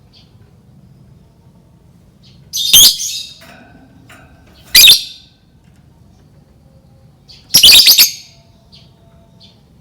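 Lovebird giving three loud bursts of shrill, rapid chattering calls about two seconds apart, the last the longest, with faint chirps in between.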